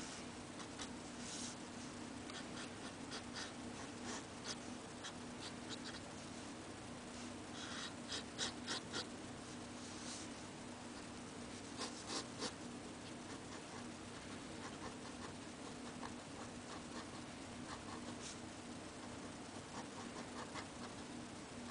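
Onoto fountain pen nib scratching across paper in short, faint strokes, with quick runs of strokes about a third of the way in and again just past halfway, over a steady low hum.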